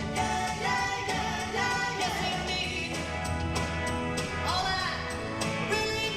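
A song: a voice singing a melody over instrumental accompaniment with a steady bass line.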